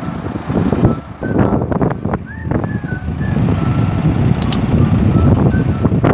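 Vacuum tanker truck's diesel engine running with a steady low rumble that grows louder about halfway through as the truck drives off. A few short high chirps sound over it.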